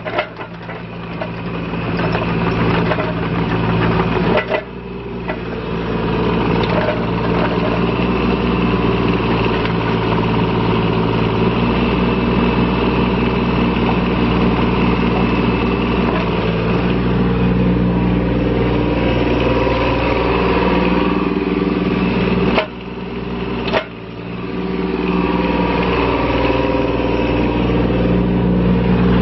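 Yanmar B12 mini excavator's small 14.5 hp diesel engine running steadily as the machine tracks and works its hydraulic boom and bucket. The level drops briefly a few times.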